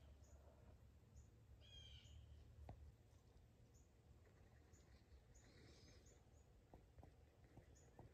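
Near silence with faint bird calls: a short run of quick chirps about two seconds in, scattered high chips, and one faint click a little later.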